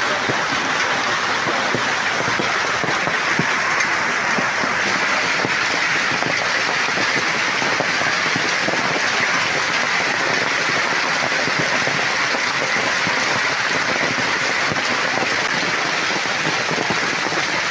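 Heavy hail falling on paved ground: a dense, even noise of many small impacts that holds steady throughout.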